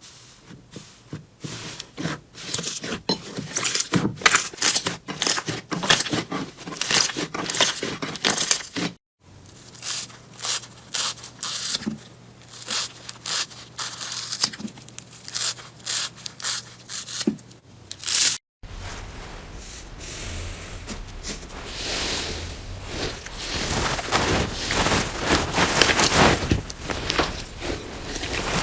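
Slime being squeezed, stretched and pressed by hand, giving dense crackling and sticky popping clicks. The sound breaks off twice, about 9 and 18.5 seconds in, and each time resumes with a different texture; the last stretch is a thicker, steadier crackle.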